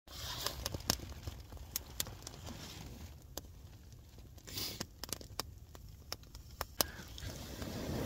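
Small wood fire crackling in a perforated metal hobo stove, with irregular sharp pops and ticks over a low rush. A short hiss comes about halfway through.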